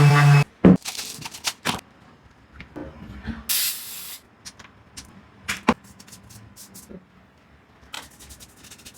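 Music cuts off about half a second in. Scattered sharp clicks and knocks follow, a single hiss of under a second comes a few seconds in, and a quick run of light clicks comes near the end.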